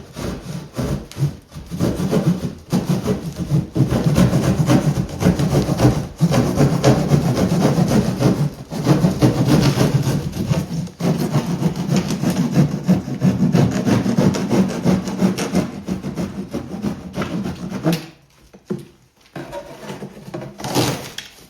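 Cardboard shipping box being cut and torn open: a long run of rough rasping, sawing strokes that stops about 18 seconds in, followed by a few quieter handling sounds.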